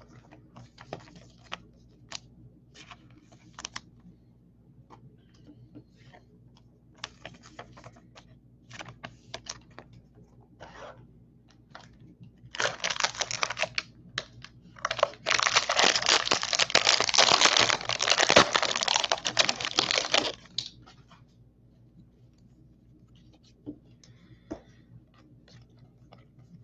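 Foil wrapper of a 2019 Bowman Draft card pack being handled and torn open: light scattered crinkles, then, about halfway through, two loud stretches of tearing and crinkling, the second about five seconds long. Faint clicks of the cards being handled follow.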